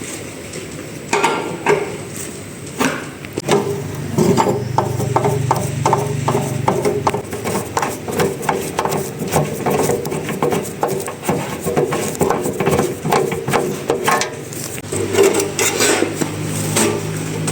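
Tools knocking and clicking on metal parts of the generator, a quick run of taps about three a second in the middle, with a low hum at times.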